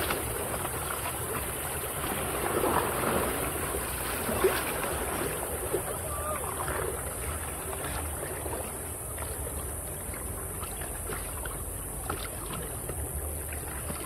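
Steady rush of river water around a raft, with faint voices now and then.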